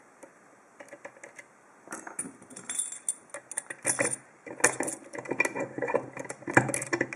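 Metallic clinking and rattling from handling a steel bicycle lock just picked open: a few faint clicks at first, then quick irregular clinks and rattles from about two seconds in.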